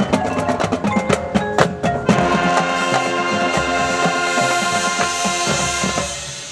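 Marching band playing: rapid drum and mallet-percussion hits, then about two seconds in the full band and front ensemble hold a sustained chord that dies away near the end, typical of a closing chord.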